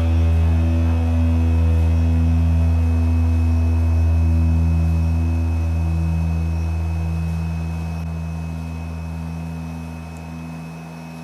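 Background music: a low held chord that rings on steadily, then slowly fades over the last few seconds.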